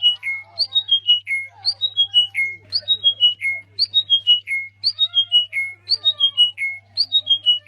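A bird call: a quick run of four or five whistled notes stepping down in pitch, repeated about once a second, over a steady low hum.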